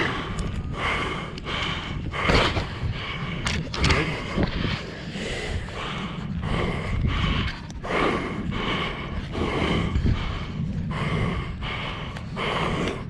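A netted Cape fur seal breathing hard in short, hoarse huffs, about one a second, over a low rumble of wind on the microphone.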